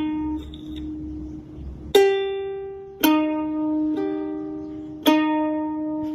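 Background music: slow plucked-string notes, each struck and left to fade, about one a second.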